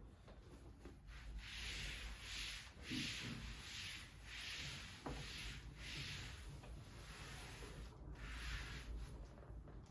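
A run of rubbing strokes on a surface, roughly one every second, with a short pause before a last stroke near the end.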